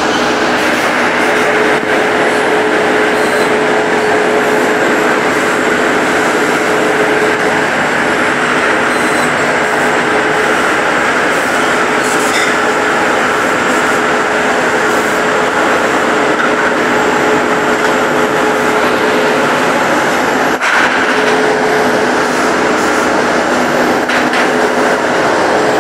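Loud, steady drone of textile mill machinery: rows of automatic cone-winding machines running, winding yarn from bobbins onto cones. A steady hum runs through the noise.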